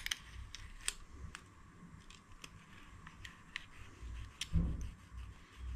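Scattered sharp clicks and taps of hand tools on the rocker-arm valve adjuster of a scooter's four-stroke engine, while the adjuster screw is held and its locknut tightened to set the valve clearance. A louder dull knock comes about four and a half seconds in.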